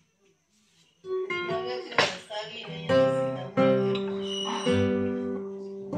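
Acoustic guitar played by hand: after a brief pause, single notes picked about a second in, then a few strummed chords left ringing.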